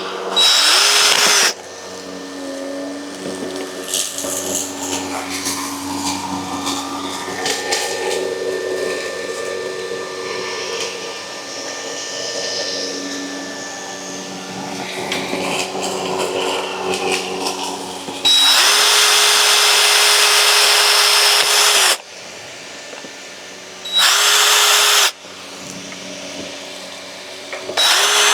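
Power drill with a small bit boring pilot holes for pop rivets, run in four short bursts: one right at the start, a longer one of about three and a half seconds past the middle, and two brief ones near the end, each rising quickly to a steady speed. Quieter handling noise fills the gaps.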